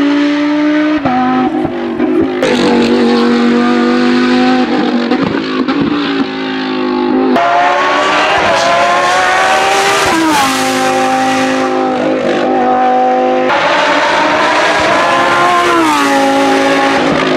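Lamborghini Huracán Super Trofeo Evo 2 race car's V10 engine at full effort, its pitch climbing and then dropping abruptly at each gear change, with several sweeps down as it slows and climbs again.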